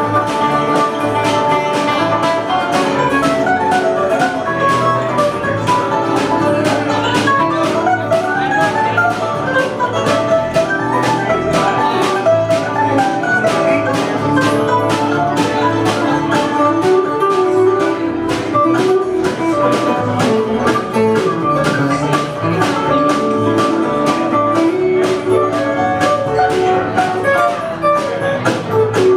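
Live band playing an instrumental break with no singing: a steady strummed rhythm with a lead instrument carrying the melody.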